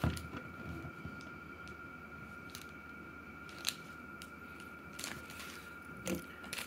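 Hands handling a small squishy toy car on a cloth surface: faint rubbing and squeezing noises with a handful of light clicks and taps, the sharpest right at the start.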